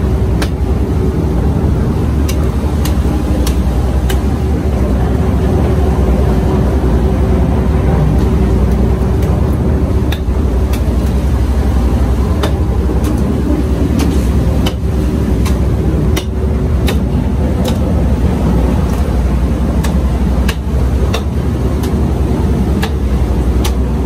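Steady low engine drone with a constant hum, and over it scattered sharp clicks and taps of a knife working along the backbone of a large yellowfin tuna.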